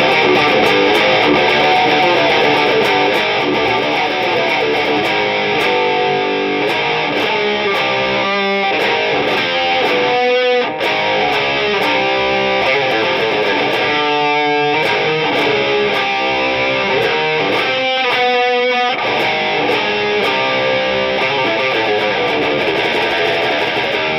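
BC Rich Warlock Revenge electric guitar with EMG active pickups, tuned down to D and played through a distorted ENGL amp. It plays heavy metal riffs with a few short breaks, in a harsh, growly tone.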